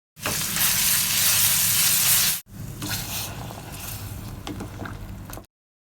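Food sizzling as it fries in hot oil: loud for about two seconds, then a sudden break, and the sizzling resumes quieter with a few light ticks.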